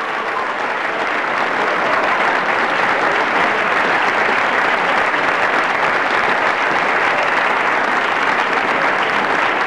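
Applause: many hands clapping, swelling over the first couple of seconds and then holding steady.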